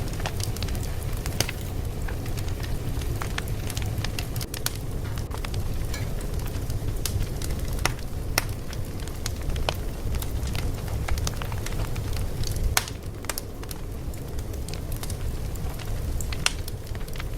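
Fire crackling, with irregular sharp pops and snaps scattered over a steady low rumble.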